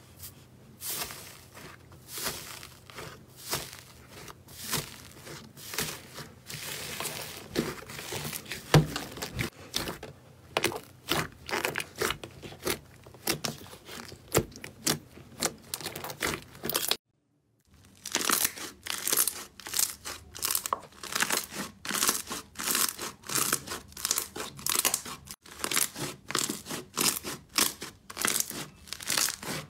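Hands kneading and pressing slime: a stream of sticky crackles and clicks as it is squeezed and pushed. After a brief silent break about 17 seconds in, a second slime gives faster, denser crackling.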